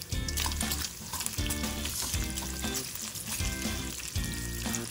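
Chopped bacon sizzling as it fries in its rendered fat in a nonstick pan, stirred with a silicone spatula, under background music.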